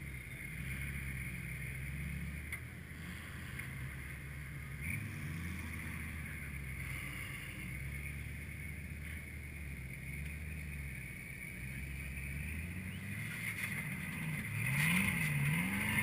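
V8 engine of a 4x4 off-road truck labouring up a steep sandy climb, a steady low drone under load. Near the end the engine is revved up and down several times as the throttle is worked to get over the ledge.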